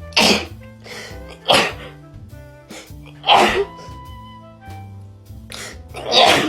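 Four sneezes set off by a nasal swab test, each short and sharp, spaced irregularly across a few seconds, over background music with a steady bass line.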